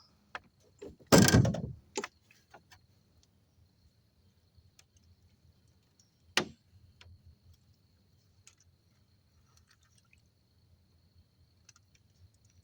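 Handling knocks: a loud, heavy thump about a second in, then a sharp knock about six seconds in, with scattered faint clicks between and a faint, steady high-pitched whine.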